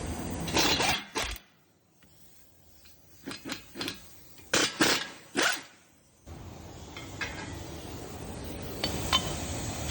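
Small metal brake parts and hand tools clinking and rattling in several short clatters, with quiet gaps between. From about six seconds in a steady background noise runs under a few faint ticks.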